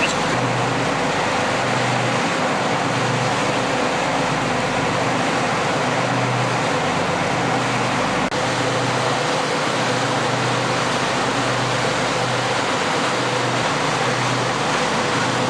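Lifeboat engine running steadily under way at sea, a pulsing low hum beneath a loud, even rush of wind and water. There is a short break in the sound about eight seconds in.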